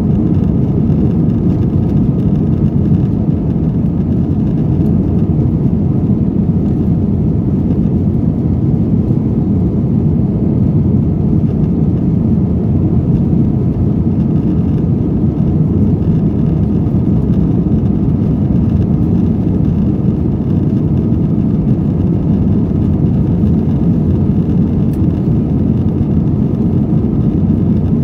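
Airbus jet airliner heard from inside the cabin during the climb after takeoff: steady engine and airflow noise, a deep even rumble that does not change.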